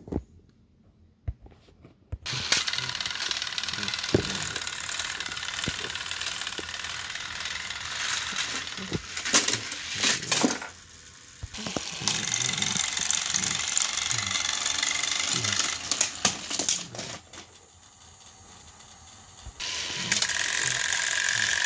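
Battery-powered motorized Thomas & Friends toy engines running on plastic track: a steady whirring of small electric motors with clicking and rattling wheels. It starts about two seconds in and has two short lulls.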